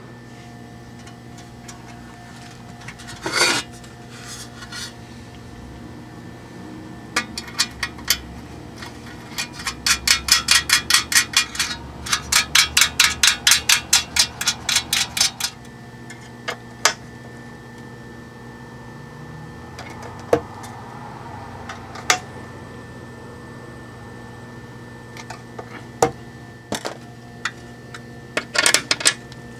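Small metal hardware clicking and tapping on an aluminium amplifier chassis as nuts and washers are fitted onto hex socket bolts. Scattered single clicks come throughout, and in the middle there is a run of fast, even clicks, about five a second, lasting several seconds.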